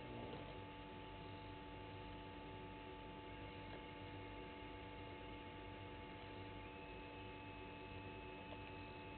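Faint steady electrical hum over a low background hiss.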